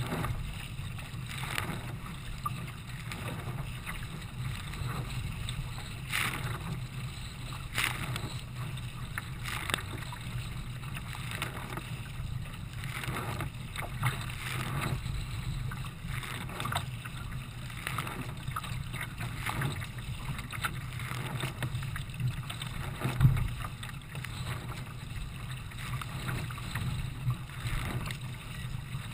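Choppy water splashing and slapping against the bow of a Nelo kayak under way, with the irregular splash of paddle strokes over a steady low rumble. One louder knock about 23 seconds in.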